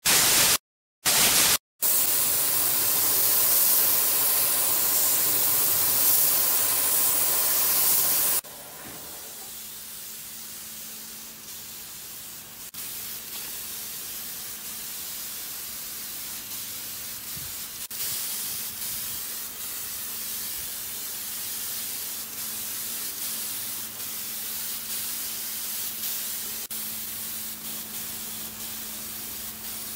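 Paint spray gun fed from a pressure pot, spraying paint onto a speaker cabinet: short bursts of hiss with the trigger released between them, then a loud steady hiss. About eight seconds in it drops suddenly to a quieter steady spray hiss with a faint low hum.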